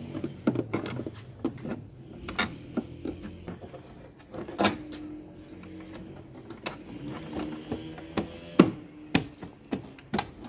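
Ford C-Max plastic tail-light housing knocking and clicking irregularly as it is handled and pushed back into its recess in the car body, with the sharpest knocks about four and a half and eight and a half seconds in.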